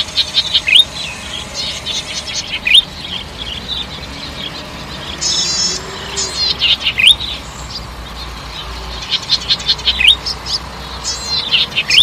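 Golden-headed cisticola singing: repeated phrases of sharp clicking notes and quick falling whistles, with a short buzzy trill about five seconds in.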